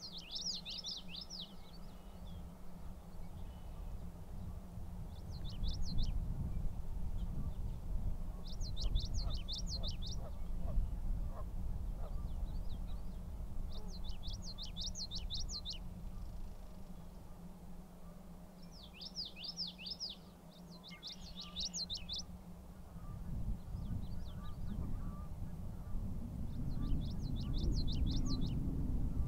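A small songbird singing a short, fast song of rapidly repeated high notes, about a second long, over and over every few seconds. A low rumbling noise runs underneath and grows louder near the end.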